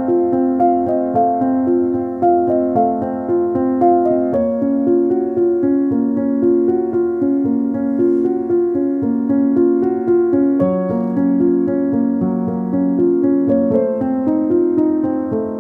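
Background music: a piano or keyboard melody of quick, even notes.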